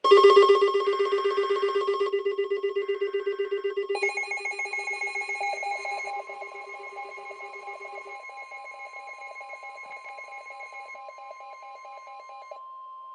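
Emergency alert tones: a loud pulsing alarm, about four to five pulses a second, that changes pattern about four seconds in and fades, over a steady tone near 1 kHz, the NOAA Weather Radio warning alarm tone, which carries on alone near the end.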